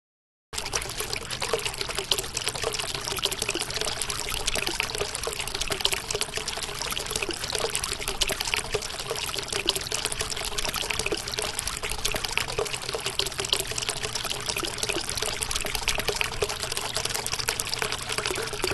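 Water pouring and trickling steadily, as from outlet pipes spilling into the sea. It starts suddenly about half a second in and cuts off suddenly at the end.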